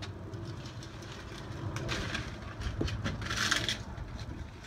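Kiwifruit vine branches rustling as fruit is picked by hand, with a short, louder rustle about three and a half seconds in, over a steady low outdoor rumble.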